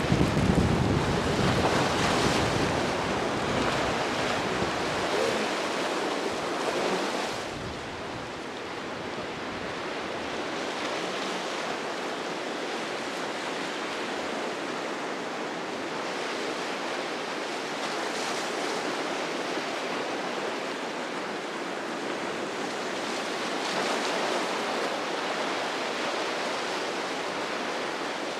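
Ocean surf washing at the inlet, with wind buffeting the microphone as a low rumble for the first seven seconds or so; after that a steadier wash of surf that swells now and then.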